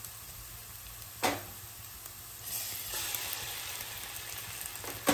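Chopped onions, green chillies and curry leaves sizzling steadily in hot oil in an aluminium pan, with a single sharp knock about a second in. The sizzle grows louder about halfway through, as ginger-garlic paste goes into the pan.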